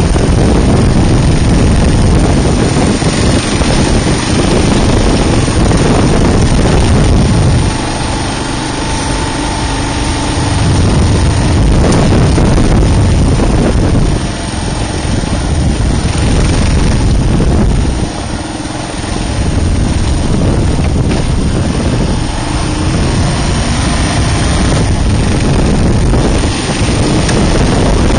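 Kawasaki KLR650's single-cylinder engine running under way, mixed with wind buffeting the microphone; the level drops briefly about 8, 14 and 18 seconds in, as the throttle eases off.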